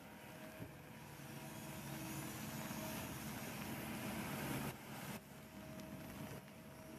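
Kobelco amphibious excavator's diesel engine running steadily under load as the boom and bucket work, with a brief break in the sound about five seconds in.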